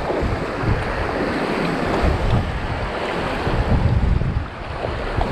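Whitewater river current rushing and splashing around a kayak, with wind rumbling on the microphone in uneven gusts.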